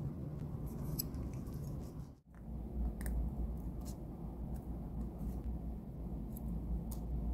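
Scattered faint clicks and crackles of tweezers and dry shed skin being peeled from a bearded dragon's foot, over a steady low hum. The sound drops out briefly about two seconds in.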